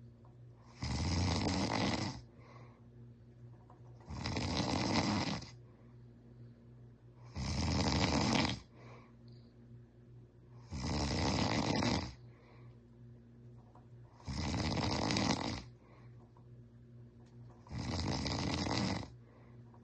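A man snoring: six loud snores, each a little over a second long, coming at an even pace about every three and a half seconds.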